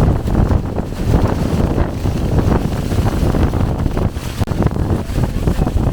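Strong gusting wind buffeting the microphone: a loud, rumbling roar that surges and eases.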